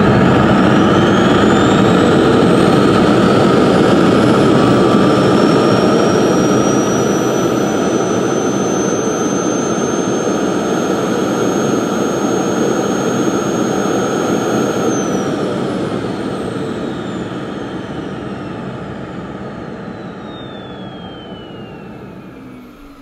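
Hoover Discovery bagless cylinder vacuum cleaner's motor running with its inlet sealed by a vacuum gauge, pulling about 120 inches of water lift. Its whine climbs slowly in pitch over the first several seconds of a soft start, then holds steady. About fifteen seconds in, the motor winds down, its whine falling in pitch and fading.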